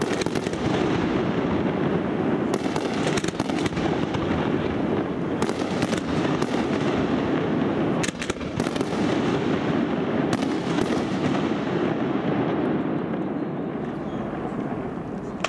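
Aerial fireworks bursting: a continuous crackle and rumble with sharper bangs scattered through it, dying down near the end.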